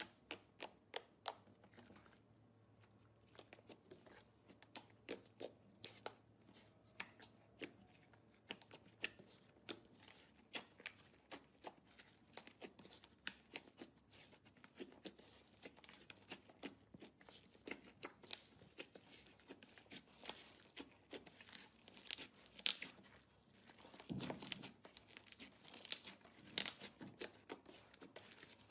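Light-blue slime mixed with shaving foam being poked, folded and kneaded by hand, giving a faint run of quick, irregular sticky clicks and crackling pops from the squeezed slime, thickest a little after twenty seconds.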